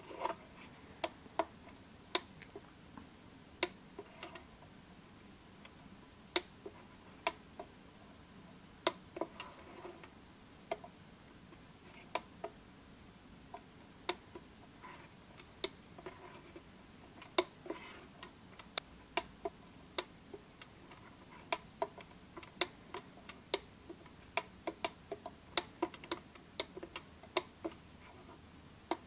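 Push buttons on a D30 digital valve positioner's keypad clicking as they are pressed to step through its menus: sharp single clicks at irregular intervals, now and then in quick runs of two or three.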